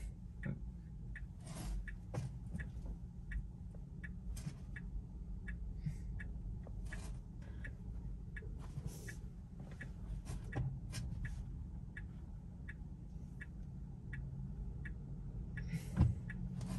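Tesla's turn-signal indicator ticking steadily, about three ticks every two seconds, over the low road rumble of the car moving slowly through a turn. A single thump sounds near the end.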